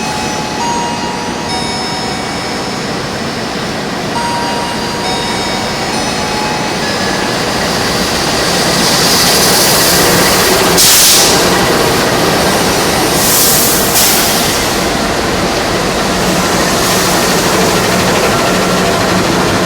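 Jayabaya passenger train running through the station without stopping, a steady rumble of wheels on rail. Thin high squeals in the first few seconds give way to rushing noise that builds about eight seconds in, with loud hissing surges near the middle.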